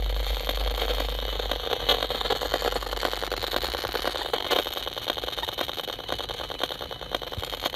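RF meter's audio output giving a dense, continuous crackling buzz, its demodulated sound of the strong pulsed radio-frequency signals in a city. A low rumble sits under it for the first couple of seconds.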